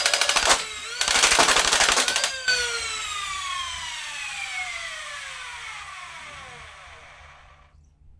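Full-auto modified Nerf Stryfe flywheel blaster firing two short bursts, a rapid rattle over the whine of its spun-up flywheel motors. Then the motors spin down with a falling whine that fades out over about five seconds.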